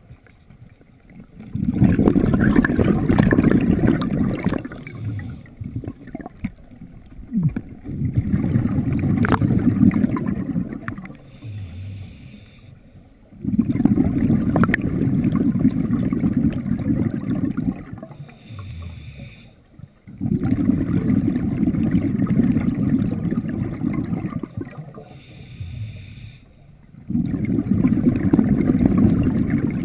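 Scuba diver's open-circuit breathing heard underwater: a rumble of exhaled bubbles lasting three to five seconds, coming back about every six and a half seconds, with short quieter gaps between.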